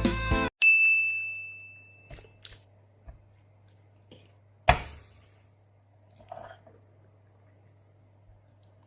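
Music stops, then a single bright ding rings out and fades over about two seconds. It is followed by a few scattered light clicks and knocks, one sharper than the rest near the middle, over a faint steady hum.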